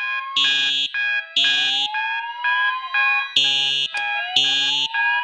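Several fire alarms sounding at once. Harsh horn blasts pulse about once a second, with shorter beeps between them, over a slow rising whoop tone that sweeps up again every three seconds or so.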